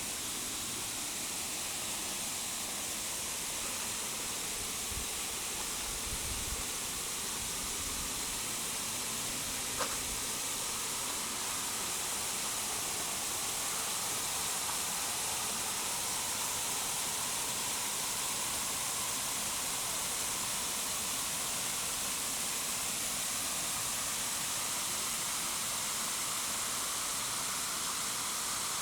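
Steady rushing of a waterfall, an even hiss of falling water. About ten seconds in there is a single sharp click, and a few faint low thuds come before it.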